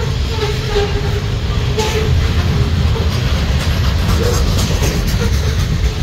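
Coal hopper cars of a freight train rolling past at close range: a steady low rumble of steel wheels on the rails, with a wavering tone that comes and goes and a couple of brief clanks.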